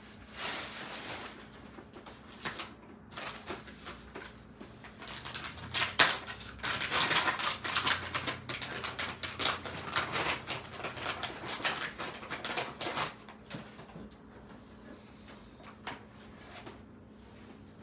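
Plastic shopping bag rustling, then a brown paper bag crinkling with many sharp crackles as it is pulled out, opened and handled, loudest in the middle stretch; only light handling clicks toward the end.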